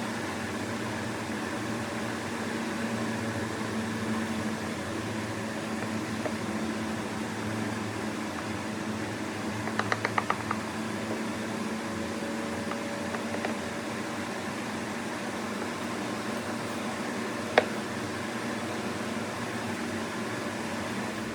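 A steady mechanical hum, like a fan running, with a quick run of light clicks about halfway through and a single sharp click near the end.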